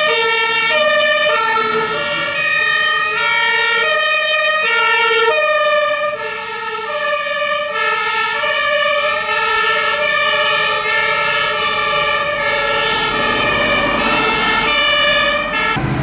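German two-tone fire-engine siren (Martinshorn) sounding, its two notes alternating about every half second. The sound turns duller about six seconds in.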